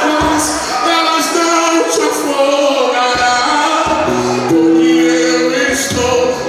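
Music with singing: a worship song with sung voices over accompaniment, one note held for about a second near the middle.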